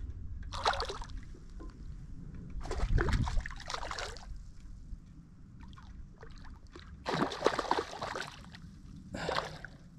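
A hooked trout splashing at the water's surface as it is played on rod and reel: four separate bursts of splashing, the two longest about three and seven seconds in.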